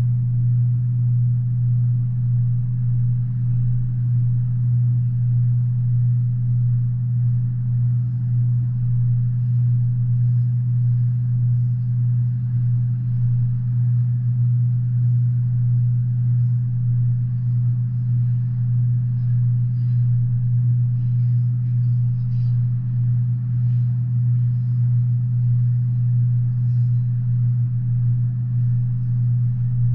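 CSX double-stack intermodal freight train rolling past, a steady low rumble heard through a window glass, with faint light clicks from the cars now and then.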